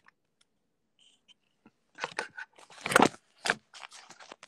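Handling noise from a smartphone being picked up and moved: after near silence, a rapid run of rustles, scrapes and knocks on the microphone starts about two seconds in, loudest near three seconds.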